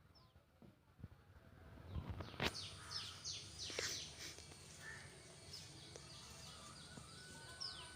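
Small birds chirping in the background: a run of quick, downward-sliding high calls. The calls begin just after a sharp click about two and a half seconds in, and from that click on a faint steady high whine also runs.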